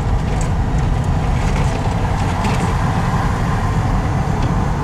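A car driving at steady speed, heard from inside the cabin: a continuous low rumble of engine, tyres and road.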